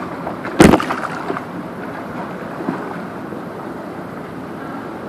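Pool water churning and splashing steadily around a swimming child, with one loud, sharp splash about half a second in.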